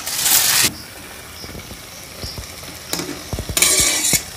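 Metal spoon stirring instant Maggi noodles in a kadai of boiling water, scraping against the pan in two loud strokes, one at the start and one near the end, with soft knocks between.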